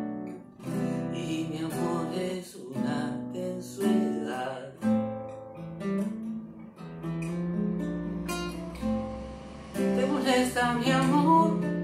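Nylon-string classical guitar played solo, plucked and strummed chords ringing on in an instrumental passage between sung verses.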